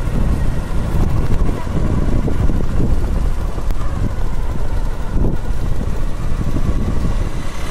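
A vehicle moving along the road, with heavy, uneven wind rumble on the microphone.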